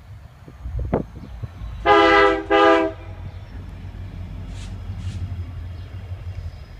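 Diesel freight locomotive's air horn sounding two short blasts, one right after the other, about two seconds in. The train then rumbles steadily past.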